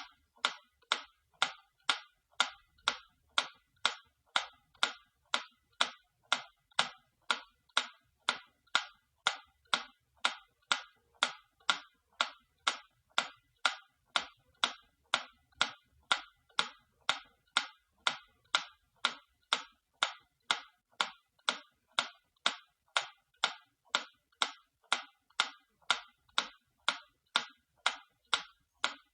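Antique clock ticking, a steady tick-tock of sharp, even clicks at about two a second.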